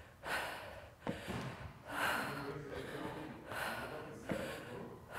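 A woman breathing hard from exertion during dumbbell step-ups, with a forceful exhale about every second and a half. Twice there is a short thud, her foot landing on the step box.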